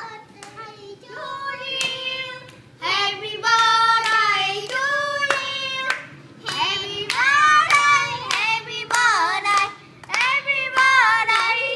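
Several voices, children's among them, singing a birthday song together, with hands clapping in a steady beat, about one clap every half second or so.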